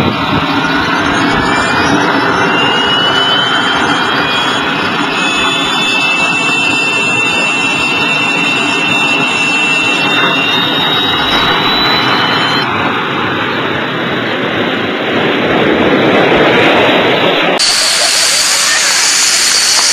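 Small turbine jet engine on a quadcycle starting up: a thin whine climbs steadily in pitch over a loud, steady rush as the turbine spools up, then the engine runs on at full noise. The sound changes abruptly twice in the second half.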